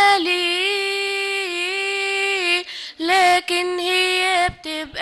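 A woman singing an Arabic hymn solo and unaccompanied, holding long, steady notes with short breaths between phrases.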